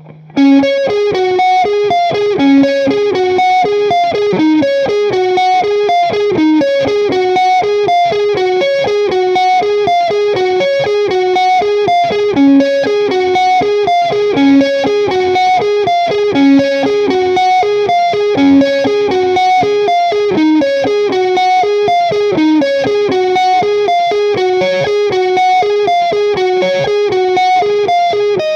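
Les Paul-style electric guitar played through a Marshall Silver Jubilee 2525H amp, picking a fast single-note melody that repeats the same figure about every two seconds. The playing starts about half a second in.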